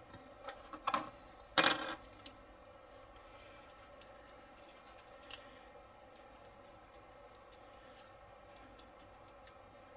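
Small metal and plastic parts of a scale-model wire-spoke wheel clicking and ticking as the loose spoke pins are pressed and shifted into line by hand. There is one louder short clatter just under two seconds in, then scattered faint ticks.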